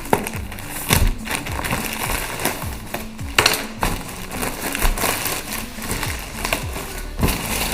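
Shoe packaging torn open by hand: irregular rustling and crinkling with sharp snaps and clicks, the loudest about a second in and again about three and a half seconds in.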